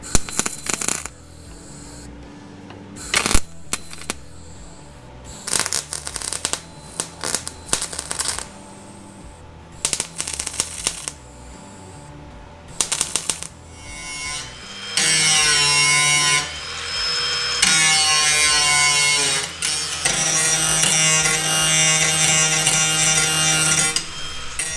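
MIG welder tack-welding a steel repair panel: short crackling bursts with pauses between them. About fourteen seconds in, an angle grinder starts and runs loud and steady, pausing twice briefly, as it grinds the welds down.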